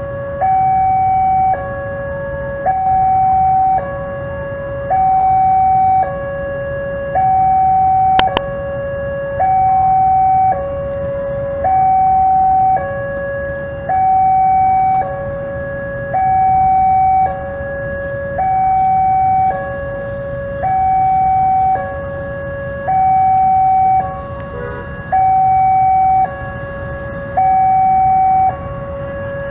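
Railway level-crossing warning alarm sounding without a break: an electronic two-tone signal alternating evenly between a higher and a lower tone, about one full cycle every 1.4 seconds, the signal that a train is coming and the crossing barriers are down.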